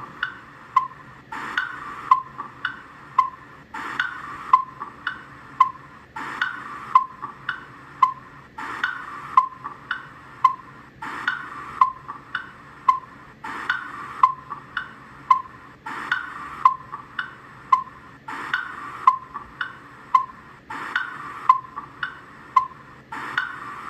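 Tick-Tock the Crocodile's clock-ticking sound effect: sharp wooden ticks a bit under two a second, with a fuller, louder stroke every few ticks, repeating in a steady loop.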